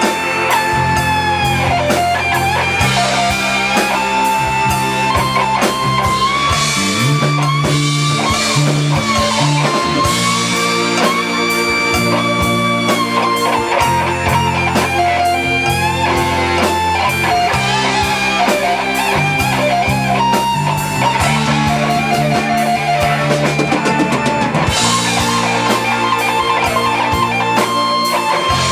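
Live rock band playing an instrumental passage: an electric guitar carries the lead in long held notes that bend and glide in pitch, over bass guitar and a drum kit.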